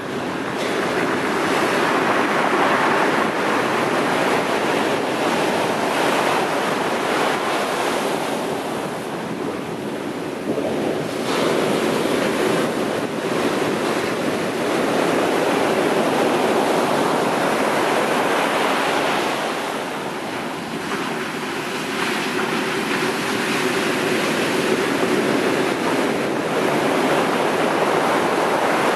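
Heavy sea surf breaking on a sandy beach and over rocks: a continuous rush of crashing and churning water that swells and eases as each set of waves comes in.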